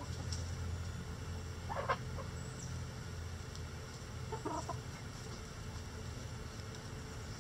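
Backyard hens clucking: two short calls, about two seconds and four and a half seconds in, over a steady low rumble.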